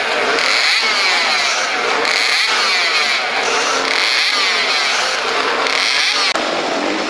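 Motorcycle engines running at high revs, their pitch sweeping up and down over and over in overlapping glides. The sound swells in brighter pulses every second or two and eases slightly near the end.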